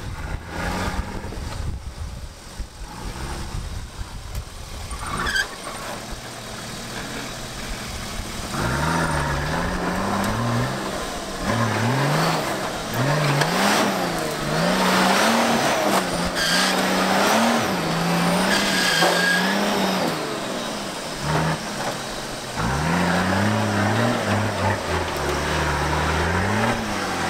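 Off-road 4x4's engine revving up and down again and again, beginning about a third of the way in after a stretch of low rumbling. It drops away briefly past the middle, then revs up and down again near the end.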